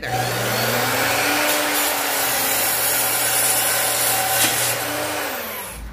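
Electric miter saw cutting a pallet-wood board. The motor's whine climbs to speed in the first second, runs steadily through the cut, and winds down near the end.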